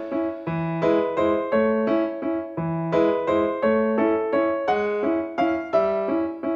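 Background music: a piano playing an even run of notes, about three a second.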